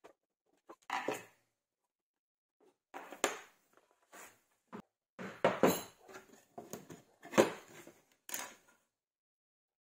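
Irregular knocks, clicks and clatter of hard objects being handled and set down during workshop work, with the loudest knock about seven and a half seconds in.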